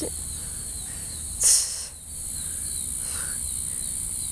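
Steady high-pitched buzzing and trilling of insects in an evening chorus, with a short, loud, hissing noise about one and a half seconds in.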